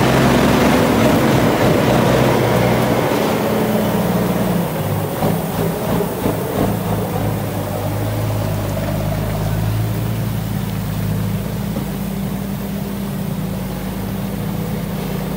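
Heavy diesel dump truck's engine running as the truck pulls past and away, its pitch changing about four seconds in and the sound slowly growing fainter.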